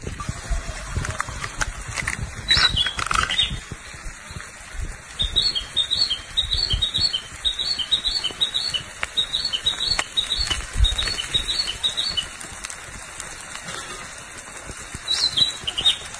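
Bird chirping: a rapid series of short, high notes, with a couple of louder calls before and after, over a low background rumble.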